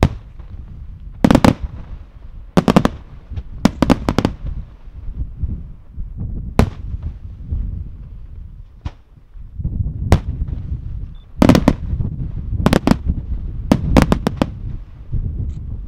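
Aerial firework shells bursting, a series of sharp bangs, some single and some in quick clusters of two or three, over a continuous low rumble.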